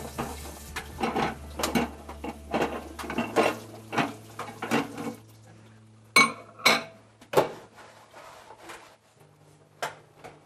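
Kitchen clatter of dishes and utensils being handled: a run of quick knocks and scrapes, then two sharper ringing clinks about six seconds in and one more near the end.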